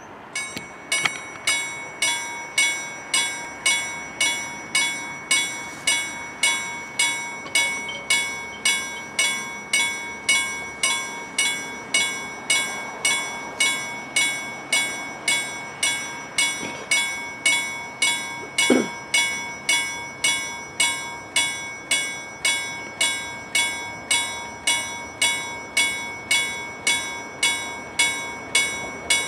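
Level crossing warning bell ringing in steady, evenly spaced strikes, about three every two seconds, starting just after the red lights come on. It signals that a train is approaching and the barriers are coming down.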